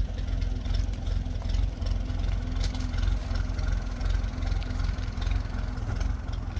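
An engine running steadily at idle: a continuous low hum with an even pulse and a faint steady tone above it.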